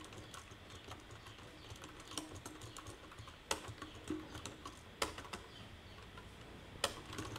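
Computer keyboard keys clicking as text is typed at an uneven pace, with a few louder clicks about three and a half, five and seven seconds in.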